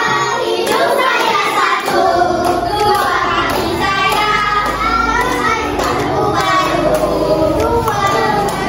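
A class of young children singing a song together, led by their teacher.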